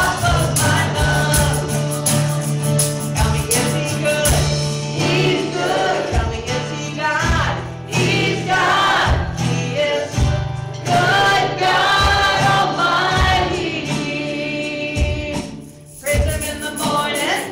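Church worship song: voices singing over held bass notes and a steady beat. The music thins out briefly near the end, then comes back in.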